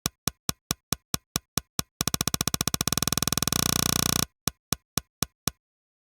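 Keystrokes on a Keychron Q2 Pro mechanical keyboard with K Pro Banana switches: crisp single clicks about five a second, then a fast flurry of keypresses for about two seconds, then a few more single clicks.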